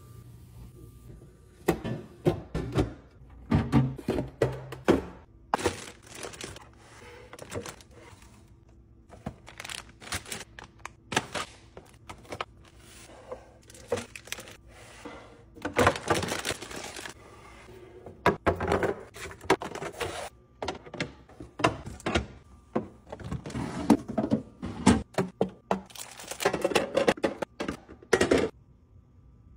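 Repeated clacks and knocks of packaged food and containers being set into clear plastic organizer bins and freezer door shelves, with plastic packaging crinkling in between.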